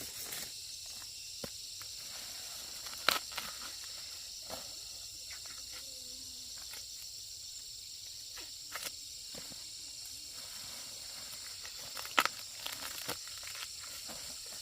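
Steady high-pitched drone of insects in the countryside, broken by a few sharp cracks or snaps, the loudest about three, nine and twelve seconds in.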